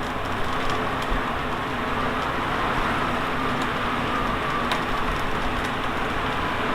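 Tornado wind sound effect: a steady rushing roar.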